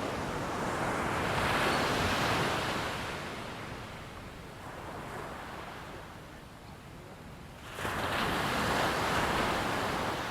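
Ocean waves breaking on a beach: one wave swells up about a second in and washes away, then a second wave breaks suddenly near the end.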